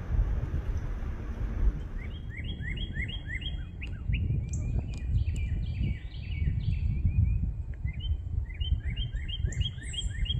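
A songbird singing rapid series of repeated chirping notes, one bout starting about two seconds in and another near the end, over a steady low rumble.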